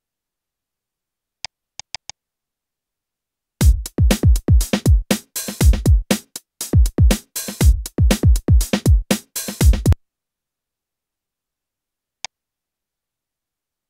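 An electronic drum-machine loop plays back for about six seconds, starting about three and a half seconds in. It has deep kick drums that fall in pitch and crisp snare and hi-hat hits. A few short clicks come before it and one comes after.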